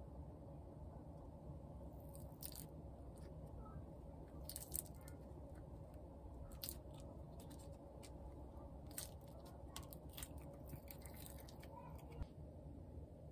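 Faint handling noise: scattered soft clicks and rubs as a cast resin block is turned over and gripped in the hands, over a low steady room hum.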